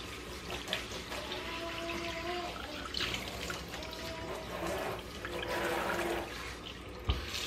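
Tap water running from a kitchen faucet, pouring over wet hair and splashing into a stainless steel sink; a steady rush.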